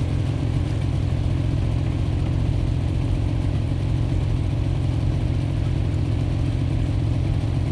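A boat engine runs steadily at low revs, a constant low drone with no change.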